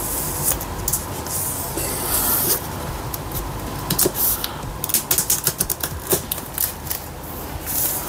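Plastic shrink wrap on a cardboard phone box crackling and crinkling as it is slit with a hobby knife and peeled away: a run of sharp, irregular crackles and rustles.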